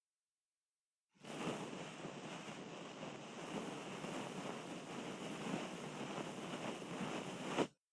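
Ear-cleaning sounds: continuous close rubbing and scratching in an ear. It starts about a second in and cuts off just before the end.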